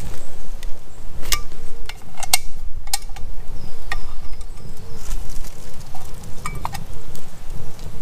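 Scattered clinks and knocks of camp cooking gear being handled, with a steady low rumble underneath.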